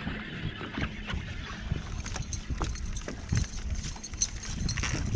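Small waves lapping and slapping against a boat hull in choppy water, with scattered light knocks and a steady low rumble underneath.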